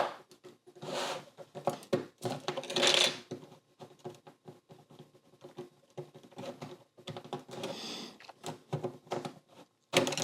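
LEGO bricks and plates being pried apart by hand: rapid plastic clicks and snaps with short stretches of plastic scraping against plastic, as pieces are worked loose and one gets a small scratch.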